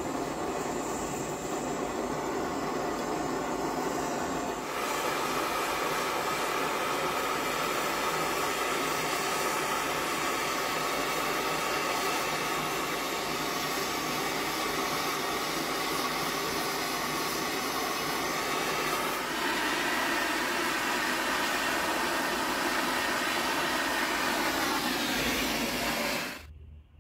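Gas torch burning with a steady hiss of flame while heating spring steel to hardening temperature. It grows louder about five seconds in and cuts off suddenly near the end.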